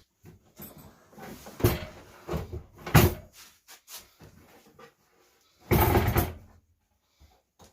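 Wooden knocks and clunks as plywood cabinet parts are handled and set down, with a louder, short scraping rush about six seconds in.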